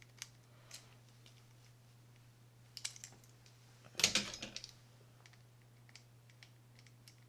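Light metallic clicks and taps of a small screwdriver and reel parts being handled, with the loudest run of quick clicks about four seconds in.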